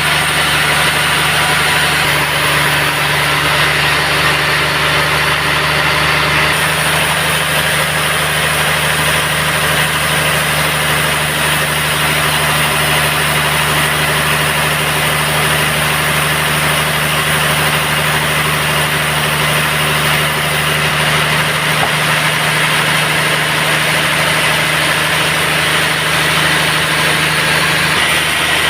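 Band sawmill running steadily: a constant machine hum with an even, unchanging level and pitch throughout.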